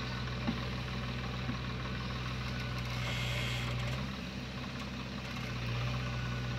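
Diesel engines of a JCB backhoe loader and a tractor running steadily, a low engine hum that sags briefly about four seconds in, as the backhoe works to free a tractor stuck in a waterlogged field. A short hiss is heard a little after three seconds.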